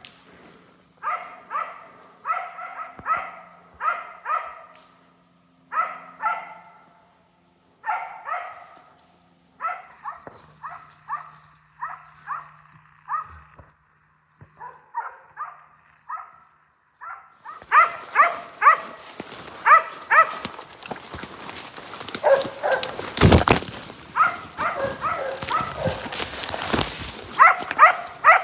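West Siberian Laikas barking steadily in quick runs of short barks at a bear treed some distance off. From about 17 seconds in, loud rustling of brush and leaf litter close by joins the barking, and the barks come in louder.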